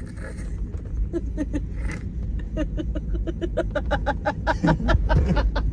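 Steady low rumble of a car in motion. In the second half comes a quick run of short, pitched pulses, about six a second.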